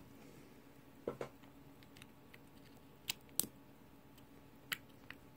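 A handful of faint, sharp clicks and taps, a second or two apart, of small tools on a Waltham pocket watch movement, over quiet room tone.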